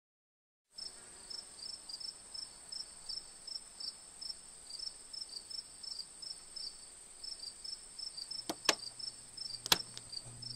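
Crickets chirping in a regular rhythm over a steady high trill, starting about a second in. Near the end, three sharp clicks from the buttons of a JVC portable boombox being pressed, with a low hum as the set switches on.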